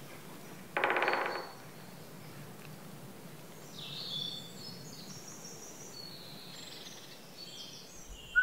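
Woodland ambience: a brief, loud, rapid rattle about a second in, then faint high bird chirps.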